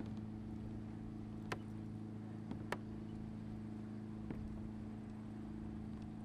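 A steady low motor hum with three short, sharp clicks spread through it.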